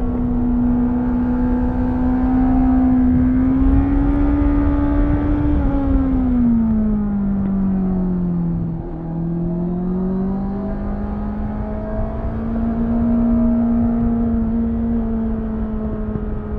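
2018 Honda CBR650F's inline-four engine pulling while riding. The revs hold fairly steady, fall away for a few seconds from about six seconds in as the throttle comes off, then climb back and level out again after about nine seconds.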